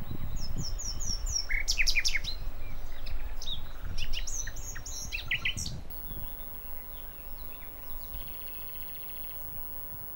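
Several small birds singing and calling, with quick, steeply falling chirps in the first six seconds. After that it fades to fainter calls and a soft buzzy trill, over a low rumble.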